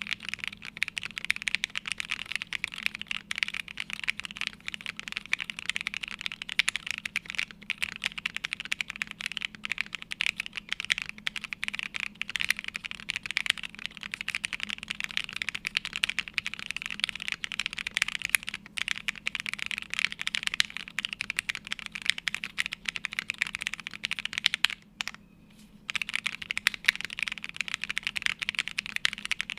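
Fast, continuous typing on a plateless, foamless Nue mechanical keyboard with lubed Gateron Box Ink Pink linear switches and CRP Jipink keycaps. There is one brief pause of about a second near the end.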